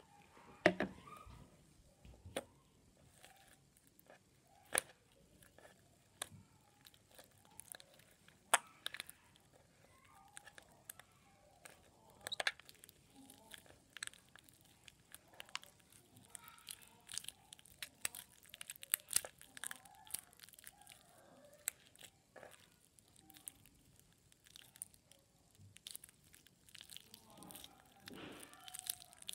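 Hands kneading and squeezing a lump of stiff, hard slime with liquid soap being worked in to soften it, giving irregular sharp clicks and crackling pops.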